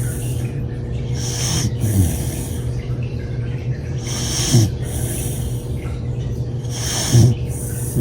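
A sleeping pet snoring in a steady rhythm, three snores about every two and a half to three seconds. Each is a hissy breath followed by a short snort that falls in pitch.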